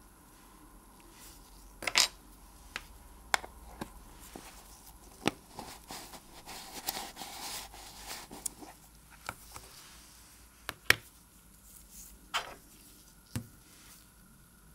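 Irregular sharp metal clicks and taps, about a dozen, from watchmaker's tools and watch case parts being handled on the bench while the caseback is fitted. There is a soft rustle between them around the middle.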